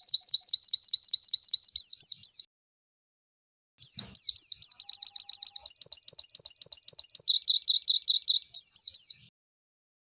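White-eye (pleci) singing fast 'tembakan' trills: rapid series of sharp, high, downslurred notes, about eight a second. One burst ends about two seconds in, and after a short gap a longer burst starts and runs until shortly before the end.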